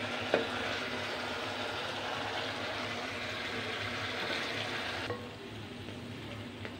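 Aloo baingan curry sizzling steadily in a nonstick kadai on the gas flame, with a single sharp click a moment in. About five seconds in, the sizzle gives way abruptly to a quieter background.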